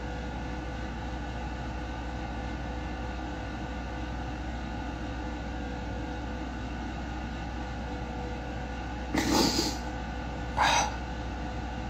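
A woman weeping silently with her hand over her mouth, two short sobbing sniffs about nine seconds in and again a second and a half later, over a steady room hum.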